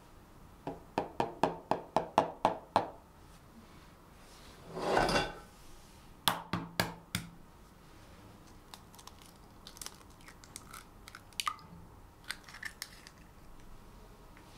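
A quick run of about nine sharp taps, a short scraping swell and four more clicks, then lighter taps and clicks on a glass bowl as an egg is cracked into it.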